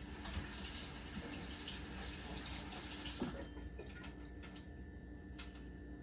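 Water running from a kitchen tap, a steady hiss that stops about three and a half seconds in.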